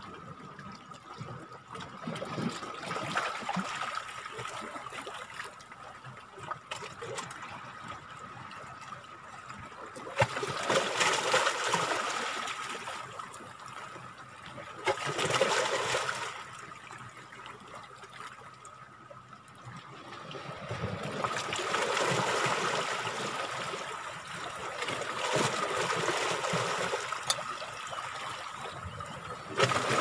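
Sea water washing and trickling among shoreline rocks, swelling and fading in surges every few seconds as waves come in.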